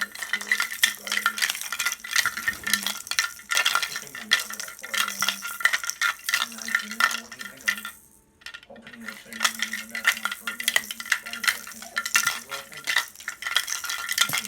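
Rapid clinking and clattering of kitchen utensils or dishes over a steady hum, breaking off briefly about eight seconds in.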